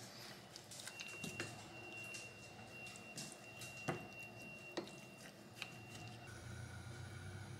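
Spoon stirring kimchi with chili flakes and sauce in a glass bowl: faint wet squishing with scattered sharp taps of the spoon against the glass. A low steady hum comes in near the end.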